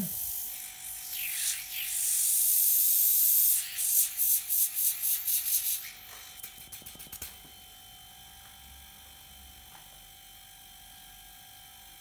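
Fridge compressor (ZEM GL45AA) running, with air from its discharge tube hissing loudly against a hand, then breaking into quick pulses of hiss. After that only the compressor's quiet, steady hum is left.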